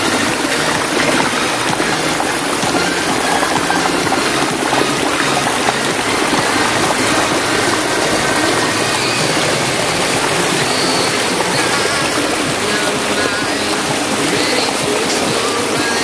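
Steady rush of fast-flowing stream water.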